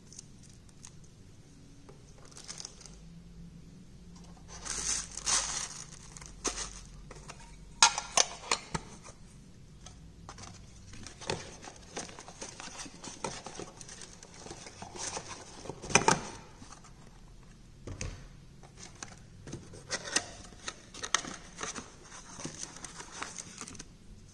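Hands handling watch packaging: crinkling and rustling of paper and plastic, and the scrape and taps of a small cardboard watch box being opened, with scattered sharp clicks and knocks, the loudest about 8 and 16 seconds in.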